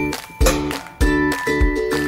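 Background music with a steady beat, a low thump a little under twice a second under sustained melody notes.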